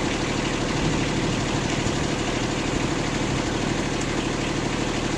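An engine idling steadily, most likely the motor of the small boat carrying the camera, with a fast even pulse and no change in speed.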